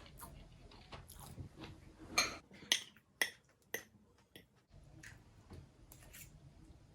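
Cutlery clinking against a dish: four sharp clinks about half a second apart near the middle, with softer scraping and tapping around them.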